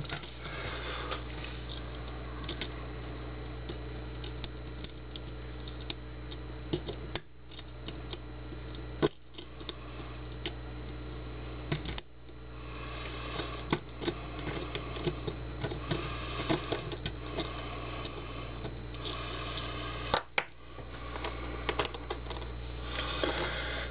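Irregular small clicks and scrapes of metal tools working on a lock cylinder as its retainer clip is taken off, over a steady low hum.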